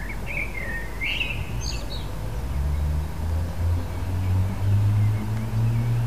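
A small bird gives a few short, high chirps in the first two seconds. Then the low, droning rumble of a vehicle engine builds up and becomes the loudest sound.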